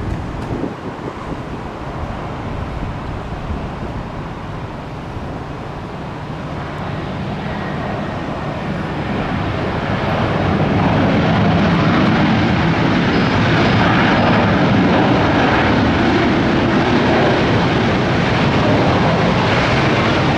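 Airliner's jet engines growing louder as it passes close by, settling into a loud, steady rush from about ten seconds in, with a faint whine above it.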